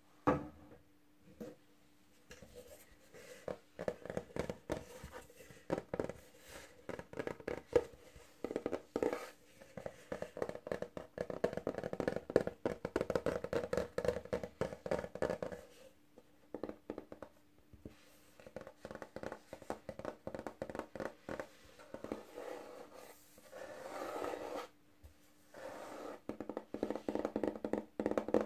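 Fingernails and fingertips tapping and scratching on the face of a brown charger plate with a beaded rim. Quick clusters of taps alternate with stretches of continuous scratching, which are densest about halfway through and again near the end.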